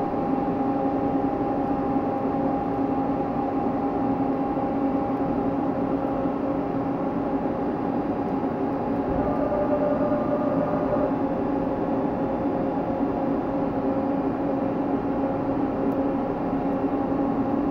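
Miyano JNC-35T CNC lathe running: a steady mechanical hum with several steady tones held throughout.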